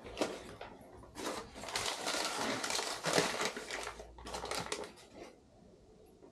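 Packaging rustling and crinkling in irregular bursts as engine parts are unwrapped and handled. It starts about a second in and stops about five seconds in.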